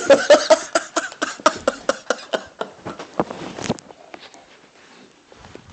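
Snoring in a quick run of short, rattling breaths that trails off into faint clicks after about three seconds.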